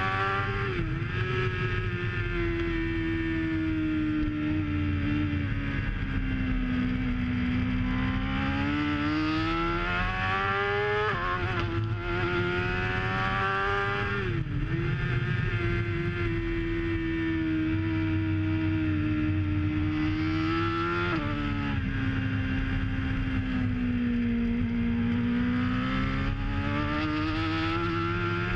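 BMW S1000RR's inline-four engine through a full Akrapovic titanium exhaust, ridden hard on track: the pitch climbs under acceleration and sinks into corners, with several sudden jumps in pitch at gear changes.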